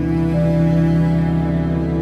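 Background music: a slow instrumental with long held notes.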